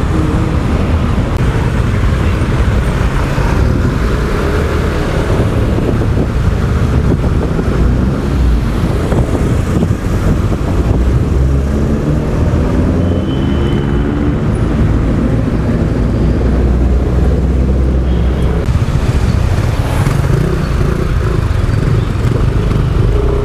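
Yamaha Aerox 155 scooter being ridden in traffic: its engine runs steadily, with road and traffic noise and some wind on the microphone. The engine pitch rises and falls around the middle.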